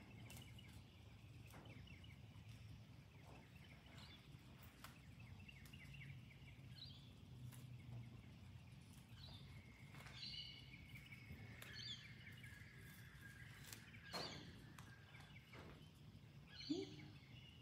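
Near silence: quiet outdoor ambience with a faint low hum, a few soft clicks and faint distant bird calls.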